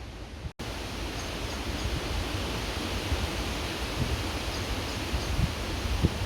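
Creek water flowing in a steady rush, with gusts of wind buffeting the microphone that grow stronger near the end. The sound cuts out completely for an instant about half a second in, and faint high chirps come through now and then.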